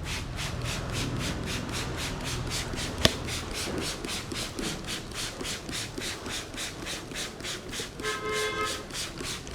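Hands rubbing briskly over the scalp and hair in a head massage, a steady rhythm of about four rubbing strokes a second. A single sharp click about three seconds in, and a short pitched tone about eight seconds in.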